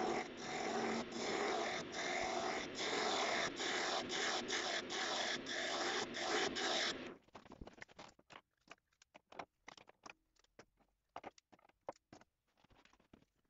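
A Korvet 74 wood lathe turning a wooden rod, with a hand-held turning tool cutting into the spinning wood: a loud, continuous rasping broken by brief dips about every half second as the tool moves. It stops suddenly about seven seconds in, and scattered light clicks and knocks of wooden pieces being handled follow.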